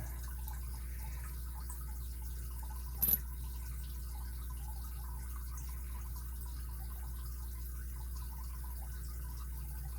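Faint small clicks and scratches of a lock pick working the pin stack of a Kryptonite padlock's core, over a steady low hum, with one sharper click about three seconds in.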